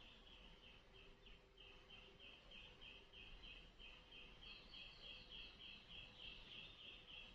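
Faint, high-pitched chirping that repeats evenly about three to four times a second, over a low room hiss.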